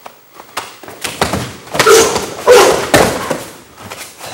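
Strikes and a body thudding onto a padded training mat as a partner is taken down in a self-defense drill, with two loud bursts about two seconds in.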